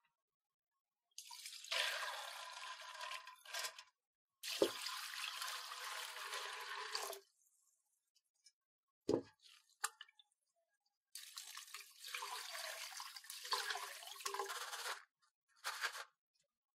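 Water running through soaked mung beans in a fine-mesh metal strainer as they are rinsed and drained, in three pours of about three seconds each and a short one near the end. A short knock about nine seconds in.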